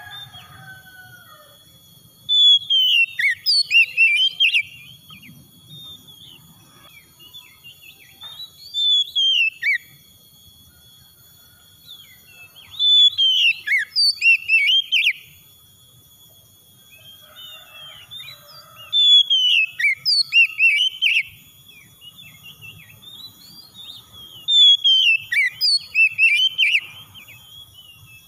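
Oriental magpie-robin singing in five bouts of a couple of seconds each, rapid varied whistled phrases that glide up and down, with pauses of several seconds between bouts.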